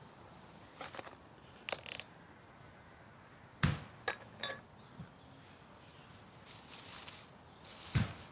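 Ferro rod scraped with a steel striker over tinder: a run of about eight short metallic scrapes and clinks, some ringing briefly, with a longer scrape near the end and a couple of duller knocks.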